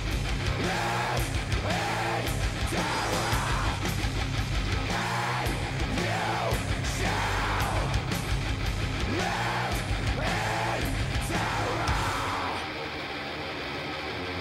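Death metal recording: heavily distorted guitars and drums playing a riff. About twelve and a half seconds in, the cymbals drop out and the music turns quieter.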